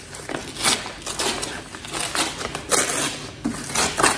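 A parcel's paper and cardboard packaging being opened by hand: an irregular run of short crinkling, rustling and tearing noises.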